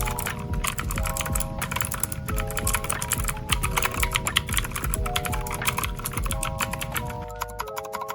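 Keychron K2 mechanical keyboard with blue switches being typed on fast: a dense, continuous stream of clicky keystrokes. Background music with held chords plays underneath.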